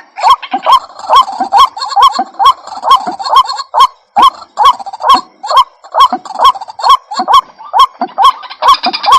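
White-breasted waterhen (ruak-ruak) calling: a loud, fast, even series of short rising notes, about two to three a second. Near the end a higher, busier chatter joins in.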